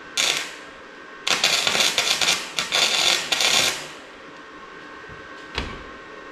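Arc welding on sheet steel: a short crackling tack weld, then a longer run of crackle of about two and a half seconds with brief breaks, as a steel patch is tacked in over a hole in the firewall. A single sharp click comes near the end.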